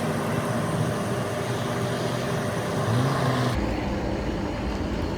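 Steady outdoor background of traffic and machinery hum. About three and a half seconds in it turns abruptly duller, with more low rumble.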